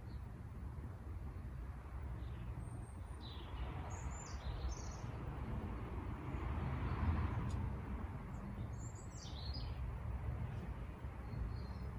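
Wild birds chirping: a short cluster of high calls about four seconds in and another about nine seconds in, over steady outdoor background noise that swells and fades in the middle.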